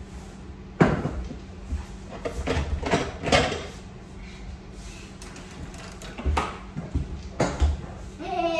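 A series of sharp knocks and clunks a few seconds apart, like household doors, drawers or dishes being handled, over a steady low hum. A child's voice starts near the end.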